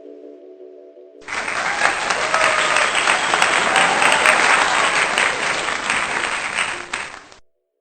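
Applause with a few faint voices, starting abruptly about a second in over the tail of soft music and cutting off sharply near the end.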